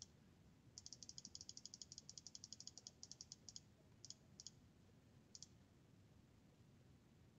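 Computer mouse button clicked rapidly, about eight clicks a second for nearly three seconds, then a few single clicks with pauses between. This is the sound of repeatedly clicking a date picker's arrow to step back through the years, then choosing a date.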